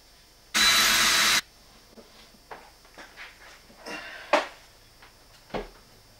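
A power drill runs in one short burst of just under a second, about half a second in. Several light knocks and clunks follow as a large TV is handled and hung on a swing-arm wall mount.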